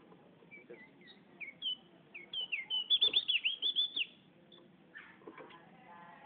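Javan grey-throated white-eye (opior jawa) singing: a series of sweet whistled notes that quickens, about three seconds in, into a fast run of loud rising-and-falling whistles, then stops about a second later.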